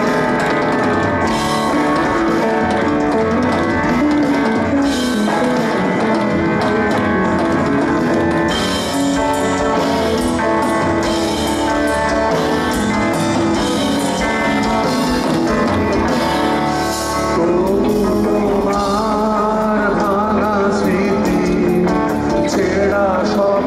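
Heavy metal band playing live through amplifiers: distorted electric guitars, bass and drum kit. A wavering sung line comes in about eighteen seconds in.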